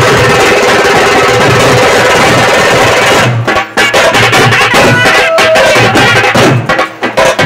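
Traditional barrel drums of a Veeragase dance troupe beaten hard with sticks. The playing is dense and continuous at first, then breaks into a fast run of sharp strokes about three seconds in.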